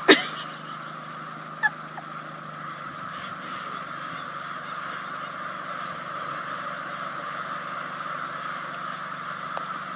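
A large flock of American crows cawing together in a dense, steady din, with a car engine idling low beneath it.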